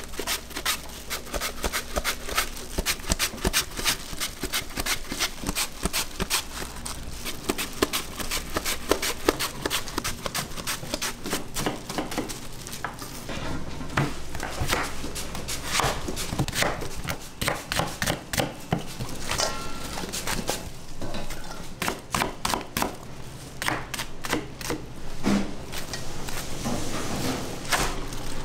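Kitchen knife chopping on a plastic cutting board: a fast, even run of sharp knocks, becoming more irregular about halfway through.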